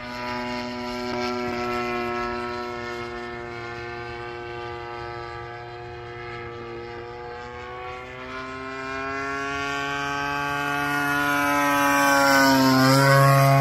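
Factor 3D radio-controlled aerobatic model airplane flying, its engine and propeller giving a steady buzz. From about two-thirds of the way in, the pitch climbs and the sound grows louder as the plane comes close. Near the end the pitch dips briefly as it passes overhead.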